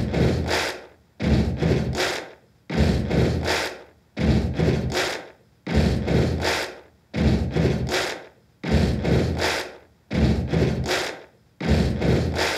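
A short, scratchy rubbing sound effect looped over and over, about every second and a half. Each repeat starts abruptly with a few quick strokes and fades out before the next begins.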